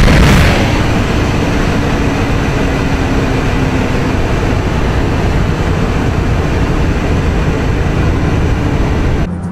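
Engine and road noise of a Corvette at speed, heard inside the cabin: loud for the first half second, then easing to a lower steady drone until it cuts off abruptly just before the end.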